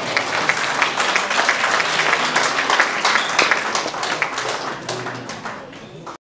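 Congregation applauding: dense clapping that eases slightly near the end, then cuts off abruptly.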